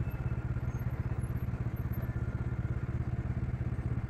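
Bajaj Dominar 400's single-cylinder engine idling at a standstill, a steady, rapid low pulsing.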